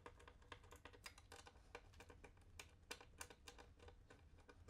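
Faint, rapid, irregular light clicking while screws are fastened by hand, with a low hum underneath.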